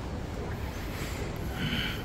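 Steady low background rumble of a shopping mall, with a brief faint higher sound near the end.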